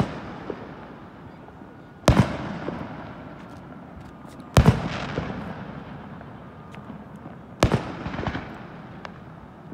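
Aerial firework shells bursting: three loud booms about two and a half to three seconds apart, each trailing off in a long rolling echo.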